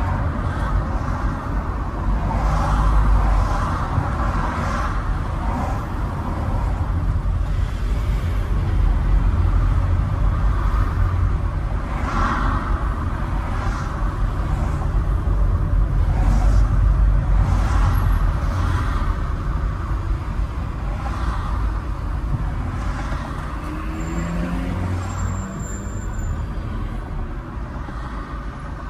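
A road vehicle on the move: a steady low rumble of engine and road noise, with a rising engine note near the end as it picks up speed.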